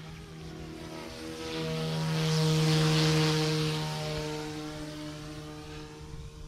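FlyWing 200 micro RC helicopter's direct-drive electric motor and rotor whining as it flies past, growing louder to a peak about three seconds in, then fading.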